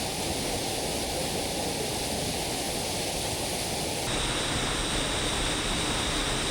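Steady rushing of a waterfall close by, an even wash of falling water. About four seconds in, the sound changes abruptly in tone, with more of the upper range coming through.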